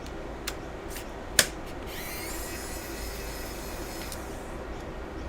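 Small plastic-and-metal clicks from handling the opened laptop's internal parts, the sharpest about a second and a half in, followed by about two seconds of a soft scraping or sliding sound, over a steady low hum.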